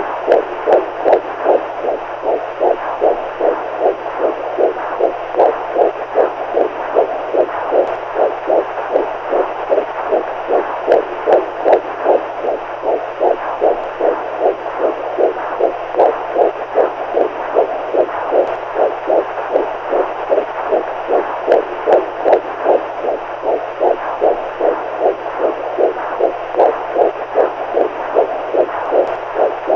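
Heartbeat sound: a steady, even beat of about two muffled pulses a second, over a faint low steady hum.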